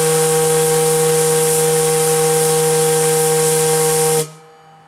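Brass fog-signal whistle blowing a long, loud, steady blast on compressed air: the timed fog signal. Its several steady tones hold without wavering and cut off sharply about four seconds in.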